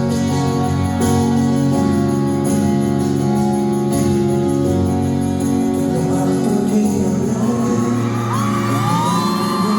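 Live pop concert music: a band playing with a voice singing over it. From about eight seconds in, high swooping screams from the audience rise over the music.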